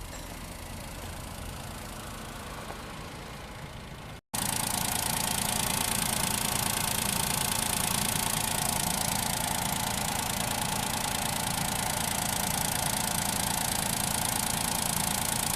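Daihatsu Move's 660 cc three-cylinder engine idling steadily. The sound drops out briefly about four seconds in, then comes back much louder and stays steady.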